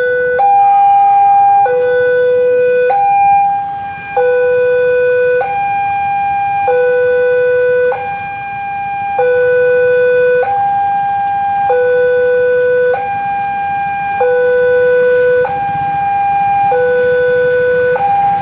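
Railway level-crossing warning alarm: an electronic two-tone signal alternating between a higher and a lower tone, each held a little over a second, over and over. It means a train is approaching and the barriers are down.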